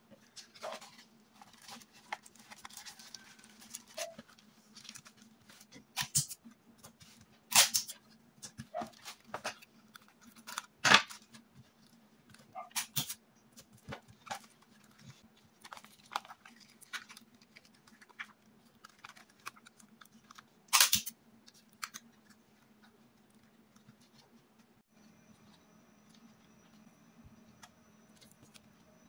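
Crafting handling noises: a thin plastic sleeve crinkling and paper banknotes rustling as they are handled, in scattered sharp crackles over a faint steady hum, growing quieter in the last few seconds.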